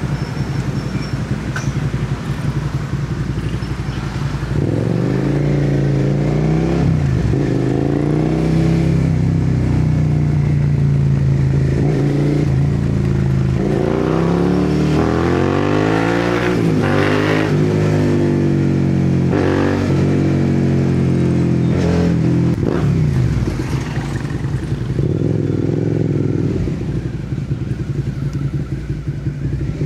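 Suzuki SV650's V-twin engine running through an aftermarket slip-on exhaust on the move: low and steady for the first few seconds, then revving up and dropping back again and again as it pulls through the gears, and settling low again near the end.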